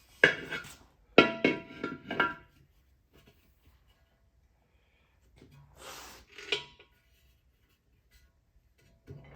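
Sharp metallic clinks and knocks with a brief ring: metal tools and parts being set down and handled. There is one near the start, a quick run of four about a second in, and two more around six seconds in.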